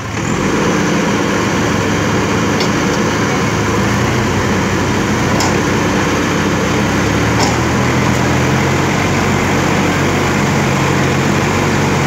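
JCB 3DX backhoe loader's diesel engine revving up right at the start and then running steadily under load while the backhoe arm works, with a few faint clicks.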